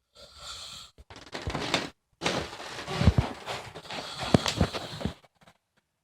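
An elderly woman snoring: three noisy breaths, the last and longest lasting about three seconds.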